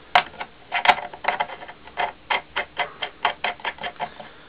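Series of sharp clicks as the nut on the particleboard bracket over the motor's rotor is tightened by hand. They come irregularly at first, then settle to about four or five a second.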